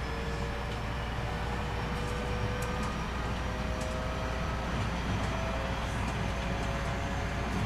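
Hitachi IGBT VVVF inverter of a 223 series 2000 electric train, heard from inside the motor car as it accelerates: a thin whine climbing slowly in pitch and stepping up a few times, over the low rumble of the wheels on the rails.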